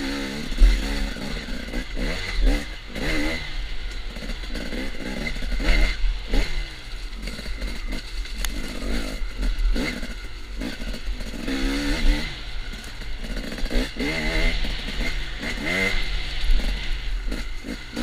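Dirt bike engine revving up and down over and over as the throttle is worked, heard close from a camera on the moving bike, with knocks, rattles and low rumble from the rough trail.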